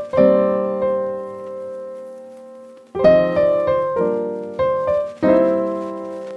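Background piano music: a chord struck and left to ring, fading for nearly three seconds, then a run of chords played about every half second.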